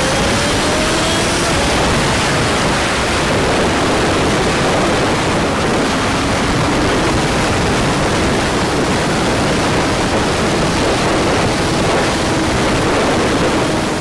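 Wind rushing loudly over the microphone of a Honda CG125 motorcycle on the move, with its single-cylinder engine faintly heard underneath as a tone that rises slightly in the first second or so, then holds steady.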